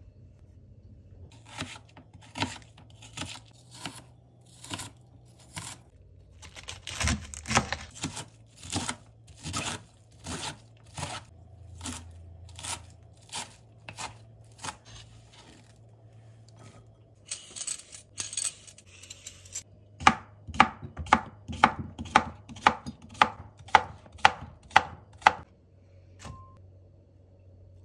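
Chef's knife chopping garlic chives on a plastic cutting mat over a wooden board: a long series of sharp knocks on the board, with a rustling scrape about two-thirds of the way through. Near the end comes the quickest and loudest run of strokes, about two a second.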